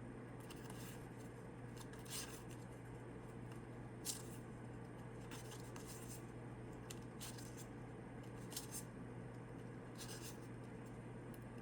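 Tarot cards being handled and laid down one by one: faint, scattered soft flicks and rustles of card stock, every second or two, over a low steady room hum.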